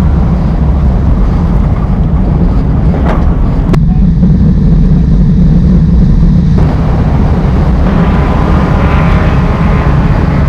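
Race car engine running loud and steady with heavy low rumble, with a sharp knock a little under four seconds in. The higher hiss drops out abruptly for about three seconds in the middle.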